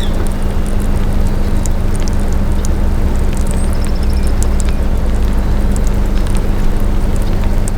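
Heavy rain pattering, with many scattered drop ticks over a dense steady hiss and a steady low rumble and hum underneath.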